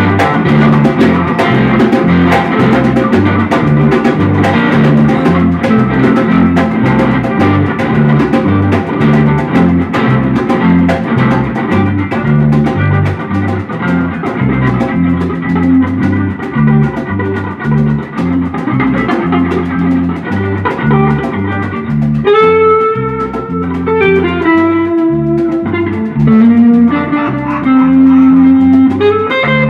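Instrumental band music with no singing: a steady drum and bass groove under guitar. About 22 seconds in, the busy top end drops away and a lead melody of held notes, stepping downward, comes forward.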